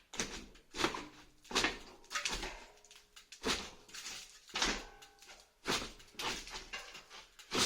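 Fireplace cladding being pried and pulled apart by hand during demolition: a run of knocks, scrapes and clatters about once a second, some with a short squeaking or ringing tone.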